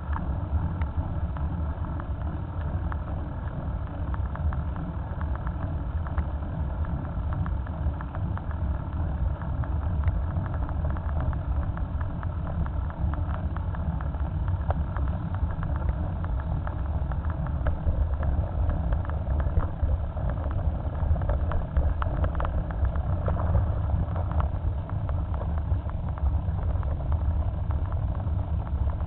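Steady running noise of a motorcycle riding along a country road, with heavy wind rumble on the low-mounted camera's microphone. The sound swells briefly about two-thirds of the way through as oncoming motorcycles pass.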